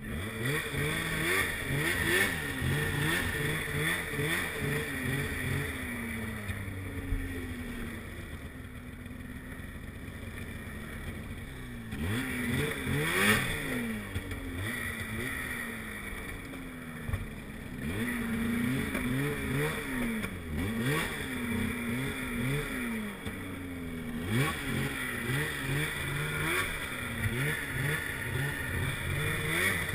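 Snowmobile engine revving up and down again and again as the sled is ridden through deep snow, the throttle opened and closed in quick succession; it eases off for several seconds about a third of the way in before picking up again.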